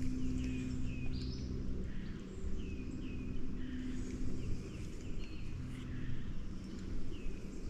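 Small bird calling in short, downward-slurred chirps, repeated about once a second, over a low steady hum from the boat's electric trolling motor that fades in and out.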